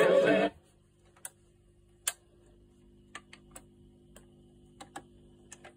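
Music from the Fidelity record player cuts off abruptly about half a second in, followed by a scatter of about ten sharp clicks from the BSR deck's tonearm and changer mechanism, over a low steady hum from the running player.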